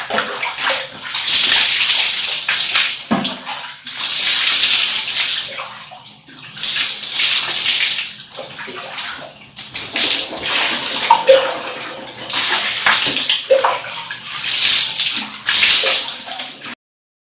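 Water sound effect: splashing, pouring water coming in about five loud surges a few seconds apart, then cutting off suddenly near the end.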